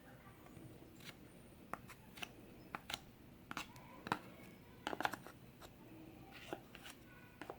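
Scattered light clicks and taps of chainsaw parts being handled and cleaned by hand, irregular, with a quick cluster about five seconds in.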